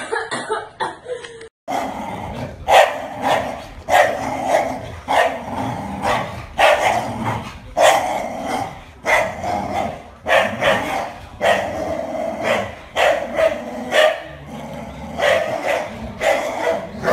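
A dog barking over and over, roughly once a second, after a brief different sound at the very start.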